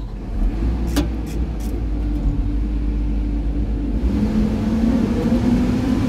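Excavator diesel engine running, heard from inside the cab, with a few sharp clicks about a second in. From about four seconds in the engine note rises and holds a steadier hum as the machine swings.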